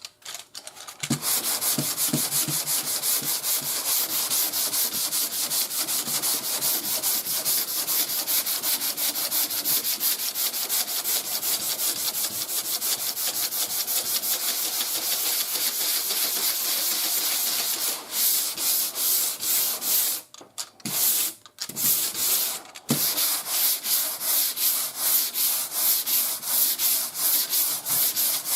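Sandpaper on a hand sanding block rubbed back and forth over primer surfacer on a car body panel, with light pressure and a quick, even stroke rhythm. It starts about a second in and pauses briefly a few times near the two-thirds mark.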